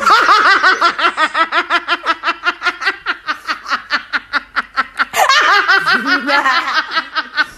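High-pitched cackling laughter, a long run of quick 'hi-hi-hi' pulses at about six a second, with a brief catch of breath about five seconds in.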